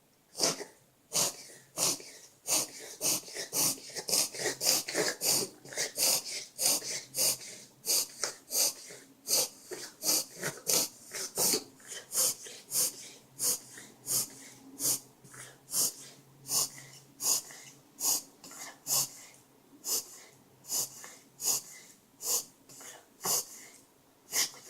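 Shiba Inu reverse sneezing: a long run of sharp, noisy in-drawn breaths through the nose, about two a second, slightly weaker toward the end.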